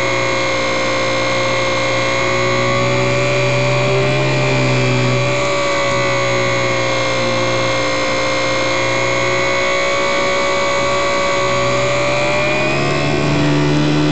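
HobbyZone Super Cub RC plane's electric motor and propeller in flight: a steady whine heard close up from on board, with wind rushing past. The pitch wavers slightly and rises a little near the end.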